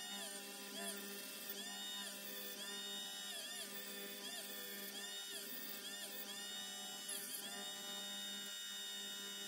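High-speed rotary tool with a bristle polishing brush whining against diecast metal, its pitch rising and falling again and again as it is worked over the casting, over a steady background hum.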